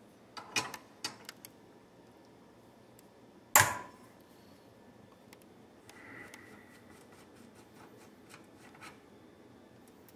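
Wrench and hand tools clicking against steel while a flash hider is unscrewed from an AR-15 barrel, with one loud, sharp metallic knock about three and a half seconds in, then a few light ticks.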